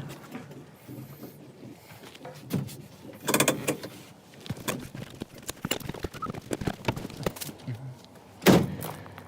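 Clicks, rattles and clunks of handling a Volvo 164's door and keys, with a louder clunk near the end.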